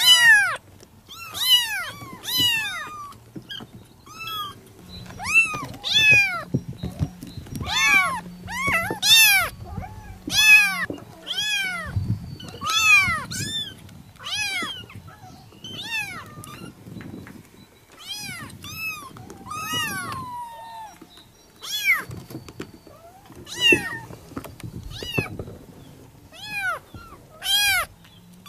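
Persian kittens mewing over and over in short, high calls that rise and fall, often one or two a second, with one longer falling mew about twenty seconds in. They are calling for their mother.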